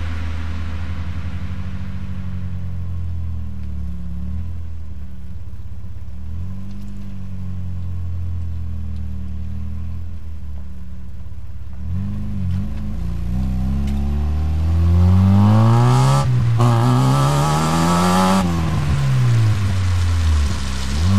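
Vauxhall C20XE 2.0-litre 16-valve four-cylinder engine heard close at its exhaust: a steady low idle with a few small blips, then it revs up and pulls hard, the pitch climbing twice with a short break between for a gear change. Near the end the revs fall away as the throttle is lifted, then rise again.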